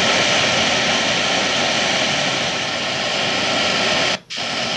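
Loud, steady radio static hissing from the Logitech AudioStation's speakers with the radio on and no station tuned in. It cuts out briefly about four seconds in.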